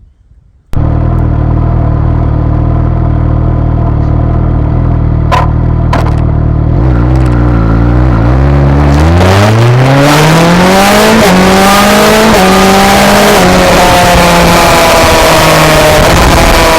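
Suzuki GSX-S1000's inline-four through an SC-Project exhaust, heard from a camera mounted at the exhaust while riding: it runs at a steady low speed, then revs climb and the bike accelerates through a few gear changes. Wind noise on the microphone builds strongly as the speed rises.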